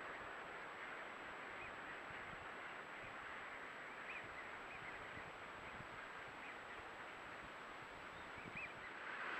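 A large flock of ducks feeding: a steady, dense mass of quacking and chatter, with a few higher single calls scattered through it.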